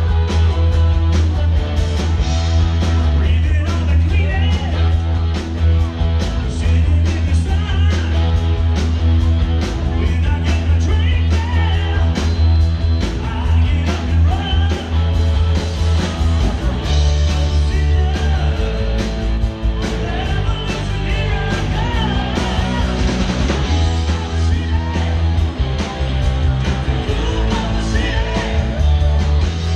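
Live rock band playing through PA speakers: electric guitars, heavy bass and a steady drum beat, with a singer's voice over it.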